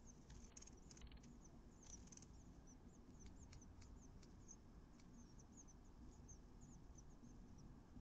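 Faint, thin, high-pitched peeping of nestling songbirds, many short chirps following one another a few times a second. A few soft clicks and scratches in the first couple of seconds come from the chicks shifting in the nest.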